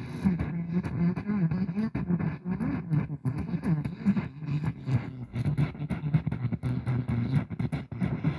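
AM radio tuned just off a station: the adjacent station's music comes through muffled and distorted, broken up by frequent crackles of static.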